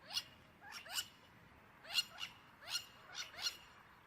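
A series of short, high-pitched animal calls, each falling in pitch, about eight of them in quick, uneven succession.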